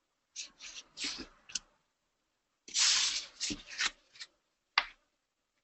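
Short bursts of scratchy rustling and handling noise on a conference-call microphone, about eight of them, cutting off to dead silence in between; the loudest comes a little before the middle.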